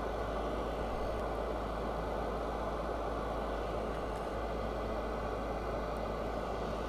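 Steady droning machine noise: an even rushing sound over a constant low hum, with no change in level.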